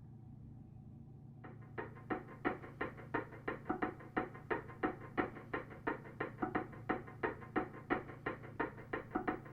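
A steady rhythm of short knocks, about three a second, starting about a second and a half in over a low hum.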